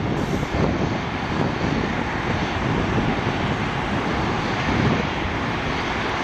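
Airbus A319 twin jet engines at takeoff power as the airliner climbs away: a steady, continuous rumble.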